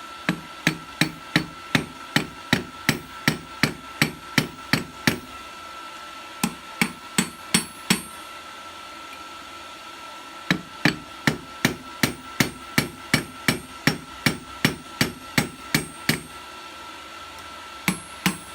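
Hammer blows on hot rebar on a metal block, struck steadily at about two and a half a second in three runs separated by short pauses, over a steady high whine.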